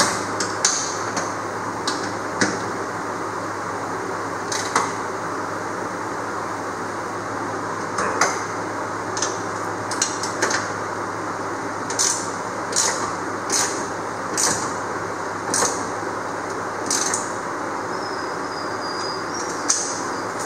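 Wrench and socket ratchet clinking on the mounting bolts through an aluminum jon boat's transom as they are tightened: short, sharp metal clicks at irregular intervals of about a second, over a steady background noise.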